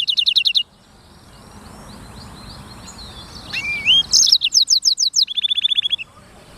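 Black-throated canary (blackthroat) singing: a fast trill that stops about half a second in, soft twittering, then from about four seconds a loud phrase of quick falling notes ending in a rapid trill.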